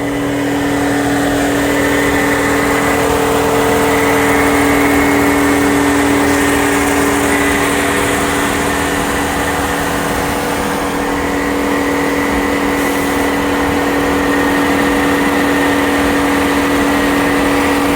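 Mercedes S550's M273 V8 idling with its electric cooling fan running, a loud steady hum and whir, after the heater control valve replacement and coolant refill.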